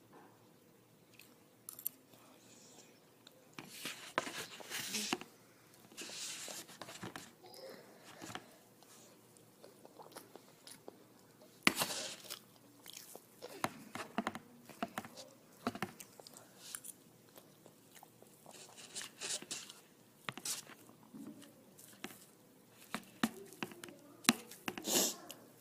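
Close-up chewing and biting of a pancake: irregular mouth clicks and short wet bursts, with louder spells about four to seven seconds in, near the twelve-second mark, and toward the end.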